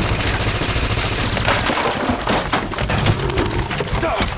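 Film action sound effects: a dense run of loud cracking and crashing impacts, like wood splintering and breaking, with sharp strikes coming thick and fast from about a second and a half in.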